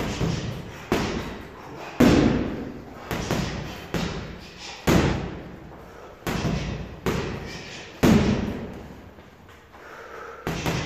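Boxing gloves punching a hanging heavy bag: about a dozen hard thuds, some single and some in quick pairs, each ringing out briefly in the room.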